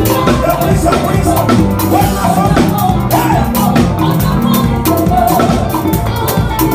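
Live band music driven by a drum kit: a dense stream of drum and cymbal hits over a bass line.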